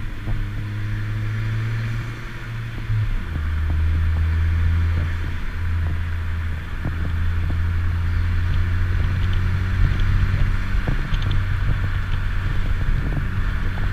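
Ford Focus ST's turbocharged four-cylinder engine running steadily under way, its note dropping to a lower pitch about three seconds in.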